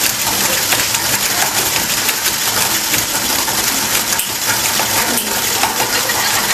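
Cordless drill running, spinning the drive of a wooden shake table, with the platform rattling and clattering in a fast continuous stream of clicks.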